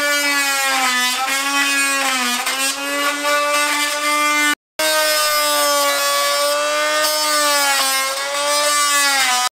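A ShopSeries oscillating multi-tool running loud and steady, cutting through the screws that fasten a wooden dinette bench to the trailer wall. Its pitch dips now and then as the blade bites. It runs twice, with a short break about four and a half seconds in.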